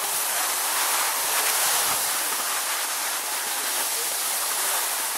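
Steady hiss of skis sliding over packed snow.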